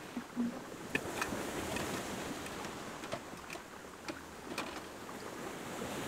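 Surf washing onto a beach: a steady rushing that swells about a second in, with scattered light clicks and taps over it.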